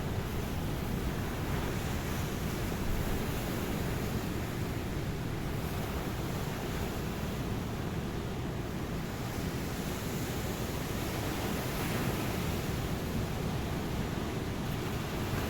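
Ocean surf: a steady, continuous wash of waves on a beach, with no single breaking wave standing out.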